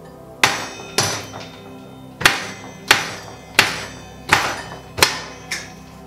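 A mallet knocking on a bicycle crankset's spindle at the bottom bracket, driving it through the frame: about eight sharp knocks, roughly two-thirds of a second apart, the last one lighter. Background music plays underneath.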